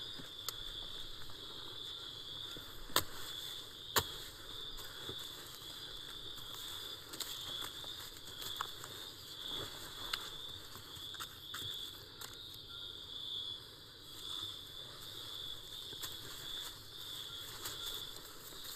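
Night insects, crickets chirring steadily in a high pulsing band, with faint crackles throughout and two sharp clicks about three and four seconds in.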